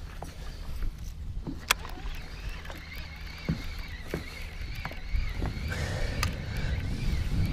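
Wind rumbling on the microphone and water slapping a small fishing boat's hull, with scattered clicks and knocks from rod and reel handling. A faint wavering whine comes in about halfway through and keeps going.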